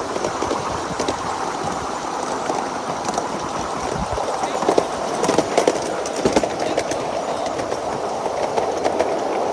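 Ride-on miniature railway train running along the track, the cars' wheels giving a steady rolling rumble with irregular clicks and knocks over the rail joints, the clicks thickest a little past the middle.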